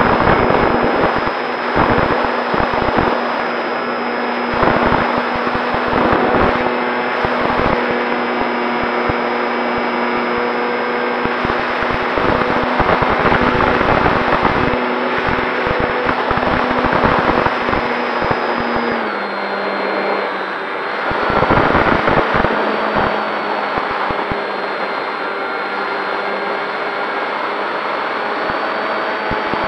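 Electric motor and propeller of a Durafly Tundra RC plane, heard from a camera on the plane itself, whining steadily at high throttle with wind buffeting the microphone. About two-thirds of the way through the pitch steps down as the throttle is eased back, then holds steady.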